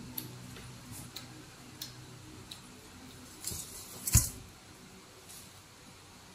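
Soft wet clicks and squishes of ripe mango being peeled and eaten, with one sharper knock just past four seconds in.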